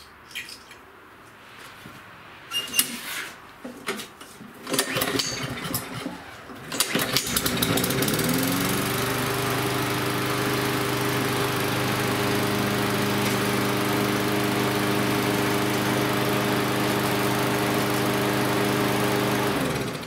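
Push mower's small single-cylinder four-stroke engine: a few clatters, then it starts about seven seconds in, revs up and runs at a steady governed speed before shutting off just before the end. It runs faster with the governor spring tab bent up to tighten the spring, and this speed is judged just right.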